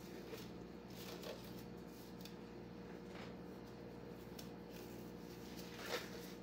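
Disposable gloves being pulled onto the hands: faint rubbery rustling and soft snaps, a few separate strokes with the loudest near the end, over a steady low hum.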